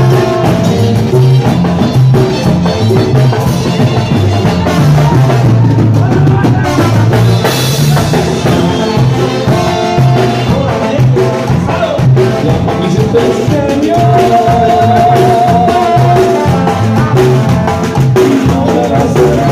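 Live Tierra Caliente band playing an instrumental passage between sung verses: trumpet and trombone, drum kit, tambora bass drum and bass guitar over a steady, driving dance beat. A wavering held melodic note stands out in the last third.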